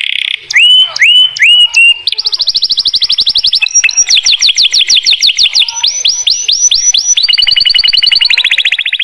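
Domestic canary singing a long song of rapid trills and repeated downward-sweeping notes, changing from one run to the next every second or two.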